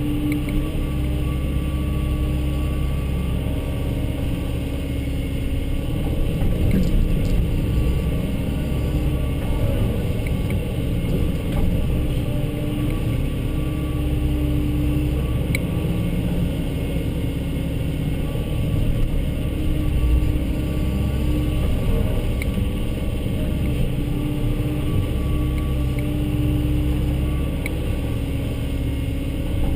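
Volvo excavator's diesel engine running steadily under working load, its note wavering a little as the hydraulics take and release load.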